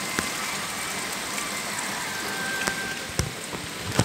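Steady hiss of rain falling, with a few short knocks and bumps in the last second or so as the phone recording it is moved and handled.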